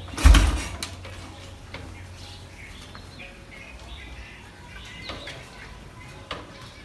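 One heavy kick on a Royal Enfield Bullet Electra's kickstarter, a sudden low thump about a third of a second in, without the single-cylinder engine catching. Birds chirp faintly.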